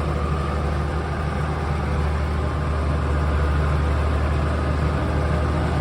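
Tractor engine running steadily while pulling a planter through the field, a constant low drone.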